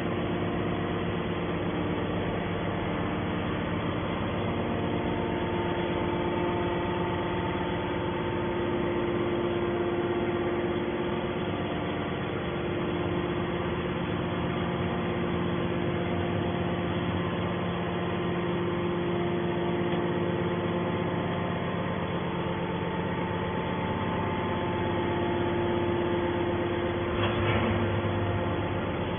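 Steady mechanical hum of a steel can baler's motor and pump running, holding several even tones, with a brief louder knock near the end.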